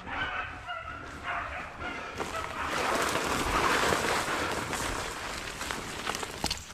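Dogs barking and yelping in short, overlapping calls. From about two seconds in, a louder steady rustle of dry brush and twigs close to the microphone takes over.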